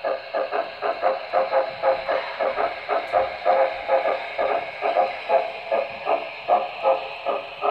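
Model steam locomotive sound decoder in a Broadway Limited HO-scale Norfolk & Western Class A playing a steady steam chuff, about three chuffs a second, over a steady hiss as the engine moves along the track.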